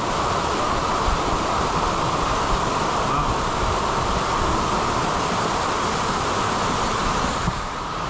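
Steady rushing of a waterfall pouring into its pool, a loud even wash of noise.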